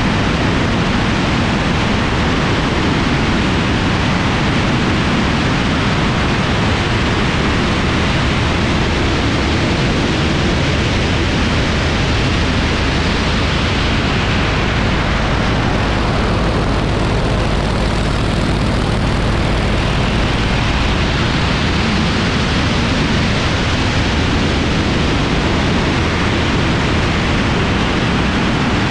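Yak-52's nine-cylinder M-14P radial engine running in flight, under a heavy rush of wind over the wing-mounted camera. The sound is loud and steady, its tone shifting a little for a few seconds past the middle as the aircraft manoeuvres.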